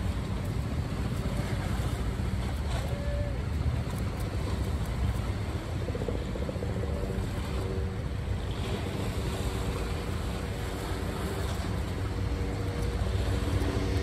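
Wind buffeting the microphone outdoors: a steady low rumble. From about six seconds in, a faint steady engine-like hum rises under it.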